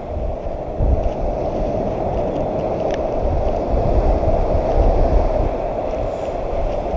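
Wind buffeting the microphone in gusts, over the steady wash of ocean surf.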